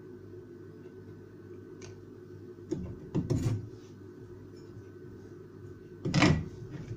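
Large kitchen knife scraping chopped green garlic off a wooden cutting board and knocking against a glass jar as the pieces go into the jar. There is a short cluster of scrapes and knocks about three seconds in, and a louder one about six seconds in.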